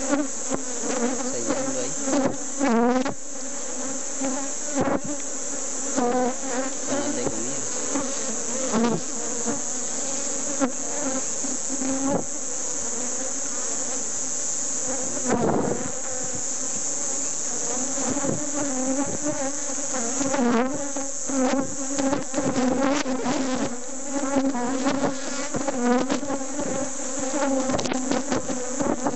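Honeybees buzzing in a dense, steady hum around a frame lifted from an opened hive, with single bees flying close past, their pitch rising and falling. Frequent short clicks and knocks run through it.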